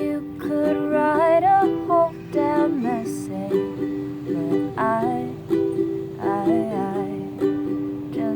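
Ukulele strummed in a steady rhythm of chords, with a melody that slides in pitch over the top.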